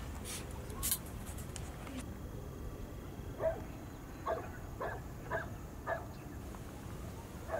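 A dog barking repeatedly, six short barks about half a second apart starting a few seconds in, after a couple of light clinks of dishes being set down.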